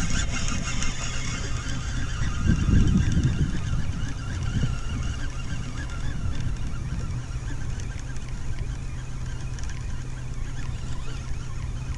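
Yamaha 25 hp two-stroke outboard motor running steadily at trolling speed, an even drone. A low rumble of wind and water swells briefly about two to three seconds in.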